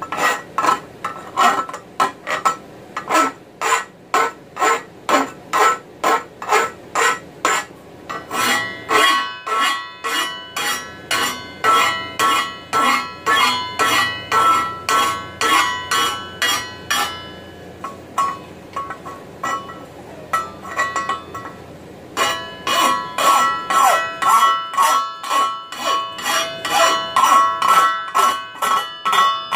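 Hand file rasping in steady strokes, about two a second, along the edges of a hand-forged mild-steel frying pan handle clamped in a vise. From about eight seconds in, the steel pan rings with the strokes, a set of steady high tones that die away around seventeen seconds and return from about twenty-two seconds.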